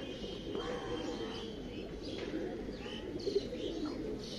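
Many domestic pigeons cooing together in a loft, a steady low cooing, with scattered short higher chirps over it.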